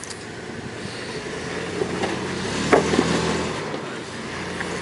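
Lifted pickup truck's engine running under load as it crawls over rock ledges, growing louder toward the middle, with a few sharp knocks about three seconds in as the tyres climb the rock.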